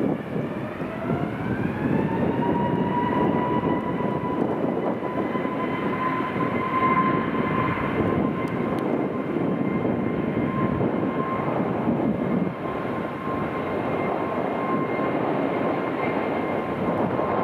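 Airbus A321neo's CFM LEAP-1A turbofan engines spooling up to takeoff thrust at the start of the takeoff roll. A whine rises in pitch over the first two seconds, then holds steady over a continuous engine roar.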